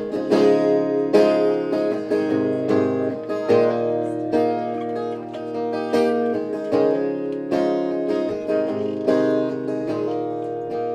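Live acoustic song introduction played on a plucked string instrument: sustained chords with a fresh pluck about every half second to second, before any singing.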